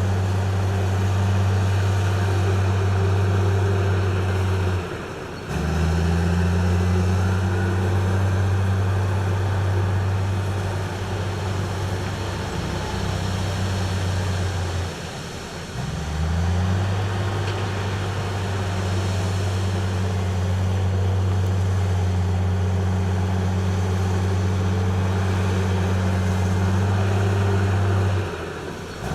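Heavy diesel construction machinery running steadily with a low hum. The engine sound drops out briefly about five seconds in and again around fifteen seconds in, each time coming back with a short rise in pitch.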